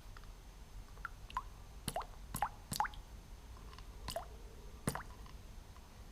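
Liquid dripping: about six separate drops plopping over a few seconds.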